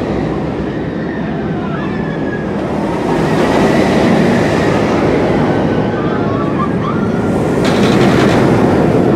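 Steel roller coaster train rumbling along its track overhead. It gets louder about three seconds in and again near the end as the train passes close.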